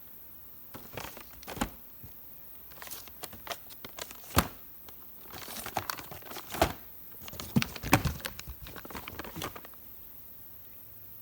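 Fireworks and their packaging being handled: plastic wrap and cardboard crinkling and rustling, with scattered sharp knocks, on and off, stopping near the end.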